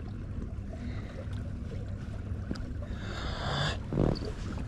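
Outdoor ambience on the water: a steady low rumble of wind and water, with a few light clicks and a dull knock about four seconds in.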